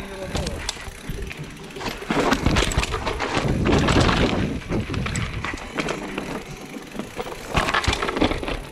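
Mountain bike rolling down a rough, rocky dirt trail: tyres crunching over dirt and rock, with the bike clattering and knocking over the rough spots. It gets louder in rough stretches about two seconds in, around four seconds in, and near the end.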